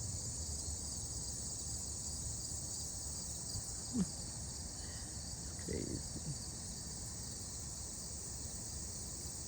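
Steady chorus of crickets chirping, with one sharp click about four seconds in and a short low sound around six seconds.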